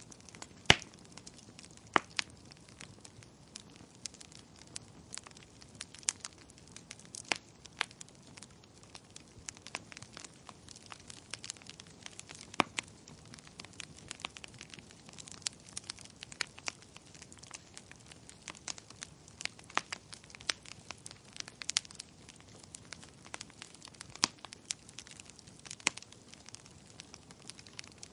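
Wood fire burning in a fireplace: a soft steady hiss with frequent irregular crackles and pops, one sharp loud pop less than a second in.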